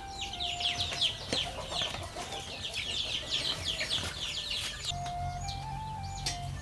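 Chicks peeping: many short, falling cheeps overlapping in a dense chorus that thins out about five seconds in.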